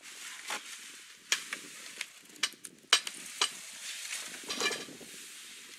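Loaded plastic sled dragged over snow: a crackly scraping hiss from the hull, with irregular sharp crunches from footsteps and the sled bumping over crusted snow.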